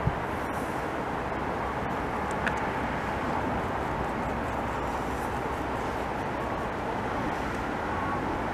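Steady hum of distant traffic, with two sharp clicks: one right at the start, the other about two and a half seconds in.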